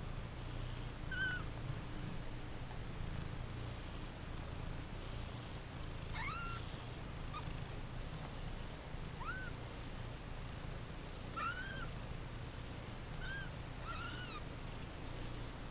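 Siberian cat purring steadily as her one-week-old kittens nurse, with several short, high squeaky mews from the kittens, each rising and then falling in pitch.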